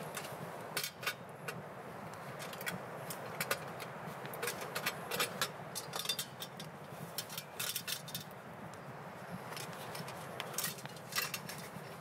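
Metal camp cookware and small gear clinking and rattling as it is handled and packed into a cloth bag, a string of irregular light clicks over a steady background hiss.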